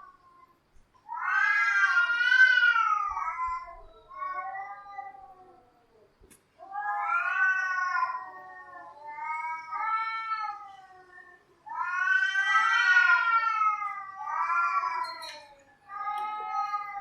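Cats yowling: long, drawn-out wavering calls that rise and fall in pitch, one after another. The loudest come about every five seconds, with quieter yowls between them.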